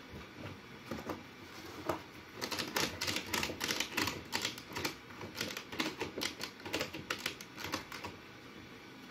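Ratchet strap being cranked tight around a circular wooden former, clamping a freshly steamed oak strip into a hoop. Its ratchet mechanism clicks a few times at first, then in a quick, steady run for most of the time before stopping near the end.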